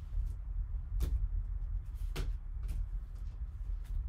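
Hard plastic card holders clicking and tapping as they are handled: a few sharp clicks about a second apart, the loudest one right at the end, over a steady low hum.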